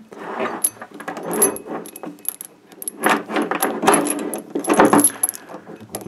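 Rusty iron chain links clinking and rattling against each other as they are handled and passed through the fingers, in irregular clusters of short metallic clinks.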